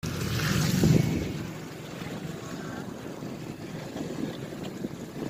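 Steady rumbling noise of a pontoon boat out on the lake, mixed with wind on the microphone, briefly louder about a second in.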